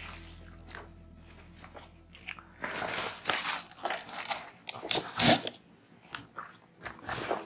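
White foam-and-plastic packaging wrap around a monitor crinkling and rustling as it is handled and lifted, in irregular crunchy bursts starting about three seconds in and loudest a little after five seconds.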